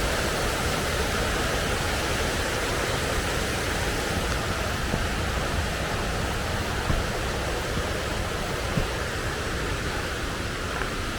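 Waterfall rushing, a steady, even roar of falling water that is pretty loud.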